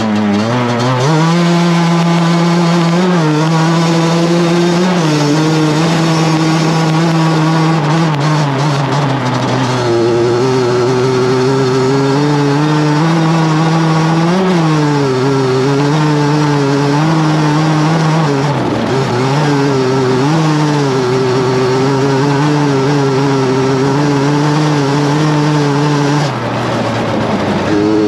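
Racing lawnmower's motorbike engine heard onboard, pulling away from near standstill and then running hard at speed, its pitch rising and falling with the throttle. The engine note dips sharply about two-thirds of the way through and briefly again near the end.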